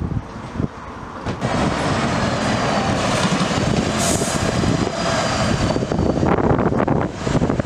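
Fire engine's diesel engine and tyres as it drives past close by and pulls away. The sound rises about a second and a half in, with a brief hiss about four seconds in.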